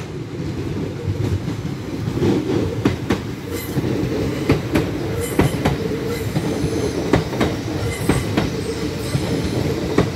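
LNER Azuma (Hitachi) high-speed train running past along the platform: a steady low rumble with a run of sharp clicks from the wheels over the track.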